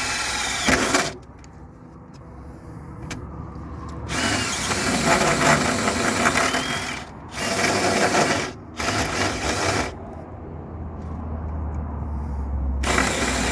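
Power tool cutting into the steel hull of a narrowboat to make a hole for a skin fitting, running in several loud spells with short breaks between them. A low hum fills the pauses.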